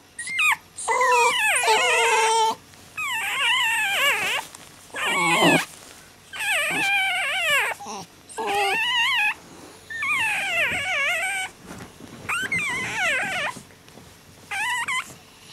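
Basenji whining: a series of about eight drawn-out whines with wavering pitch, each lasting up to a second and a half, with short pauses between them.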